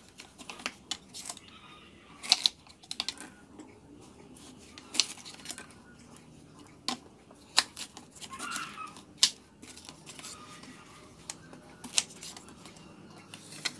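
Kitchen knife chopping a peeled banana heart on a wooden cutting board: irregular sharp knocks as the blade goes through and strikes the board, about one every second or two.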